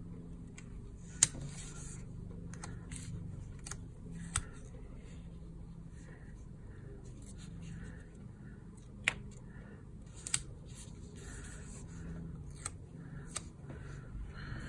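Paper stickers being peeled from their backing and pressed onto planner pages: soft rustling and crinkling of paper, with a few sharp clicks and snaps, the loudest about a second in.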